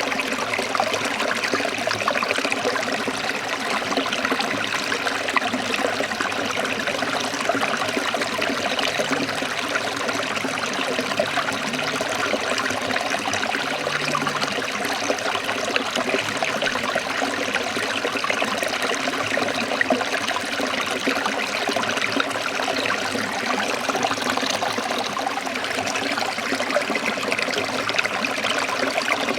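A forest stream trickling and splashing steadily: a continuous, even rush of flowing water.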